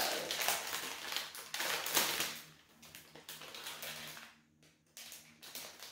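Crinkling and rustling of packaging being handled, with sharper crackles that are loudest about two seconds in.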